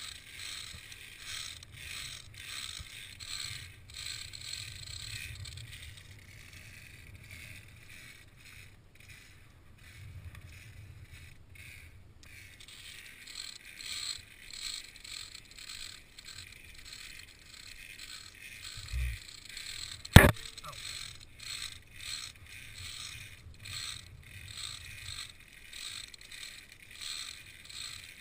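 Metallic clinking and rattling of climbers crossing a via ferrata suspension bridge: footsteps on its steel grating walkway and carabiners sliding along its steel cables, a steady run of small clicks. About two-thirds of the way through there is one sharp, loud knock, the loudest sound.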